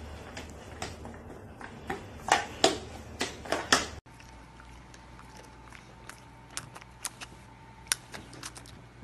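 Sharp taps and crinkling rustles, several in quick succession, as a kitten bats at a hanging plastic pet-food bag and a broom sweeps a tiled floor. After an abrupt cut about four seconds in, a quieter stretch follows with a faint steady hum and a few soft clicks.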